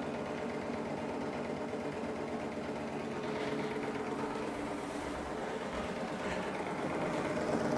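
Small Stirling engine running steadily, its flywheel spinning fast, growing a little louder near the end. It is working under load, driving a magnet-ringed flywheel generator that charges a capacitor.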